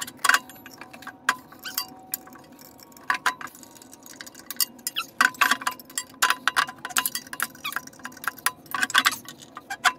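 Irregular metallic clicks and clinks of a wrench working the housing bolts between the electric motor and the Boston worm gearbox, breaking them loose. Some clicks come in quick runs.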